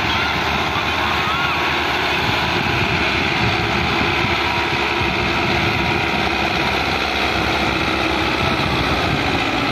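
Belarus 510 tractor's diesel engine running hard under heavy load, a steady dense noise without breaks, as it pulls a trolley piled with sugar cane up a steep ramp; the black exhaust smoke marks it working at full throttle.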